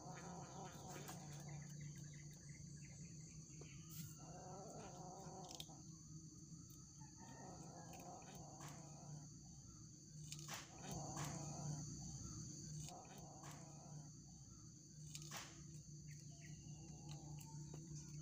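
Faint outdoor background: a steady high insect-like drone over a low hum, with short wavering pitched calls every couple of seconds and a few scattered clicks.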